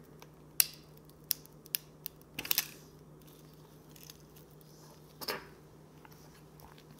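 Sharp little clicks and taps of small tools and plastic camera parts being handled during disassembly of a Sony compact camera, scattered irregularly with a quick run of clicks about two and a half seconds in and a brief scrape about five seconds in, over a faint steady hum.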